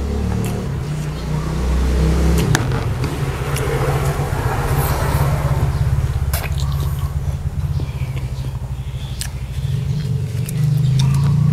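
Close-up sounds of a person eating: chewing with a few sharp clicks of biting and mouth sounds, over a steady, loud low rumble.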